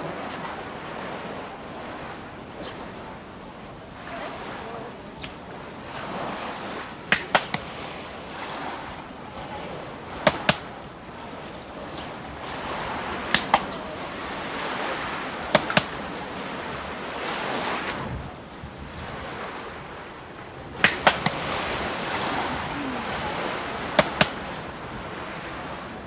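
Steady wind-and-surf noise that swells every few seconds, broken six times by sharp clicks in quick pairs or threes, which are the loudest sounds.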